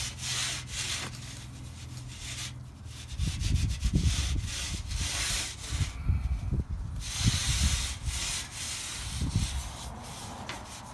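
Scotch-Brite pad scrubbed back and forth across an aluminum Plymouth grille: a rasping scour in repeated strokes, with short breaks about two and a half and six seconds in, over dull low bumps. The pad is scouring off oxidation softened by oven cleaner.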